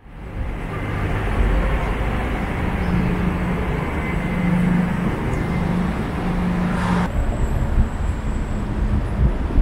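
City street ambience: a steady rumble of traffic with a low hum, fading in at the start. About seven seconds in it changes abruptly to a different mix of traffic noise, with a faint high whine.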